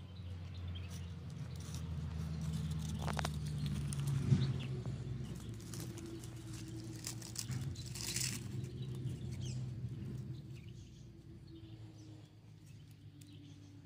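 Dry grass, leaves and twigs crackling and rustling as hands arrange kindling between stones, in scattered short bursts over a low steady rumble of outdoor background noise.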